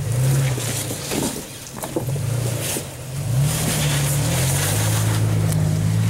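Lifted Toyota Tacoma's engine working as the truck crawls over boulders in low gear, its revs rising and falling unevenly, then climbing and holding steadier over the last few seconds. A few short knocks come in the first two seconds.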